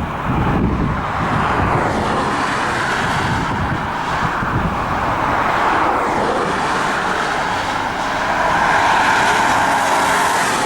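Car driving, heard from inside through an open window: steady road and engine noise with air rushing past the microphone.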